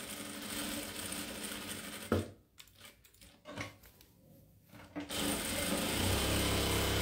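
Jack industrial straight-stitch sewing machine stitching fabric: one steady run that stops about two seconds in, a pause of about three seconds, then a second steady run with a low hum from about five seconds in.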